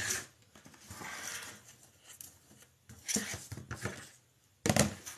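Wired craft ribbon being pulled off its roll and handled: a rustling crinkle broken by a few short, sharp sounds, the loudest near the end.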